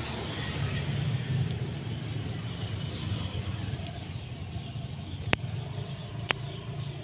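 Steady low background rumble, with two sharp clicks about a second apart near the end.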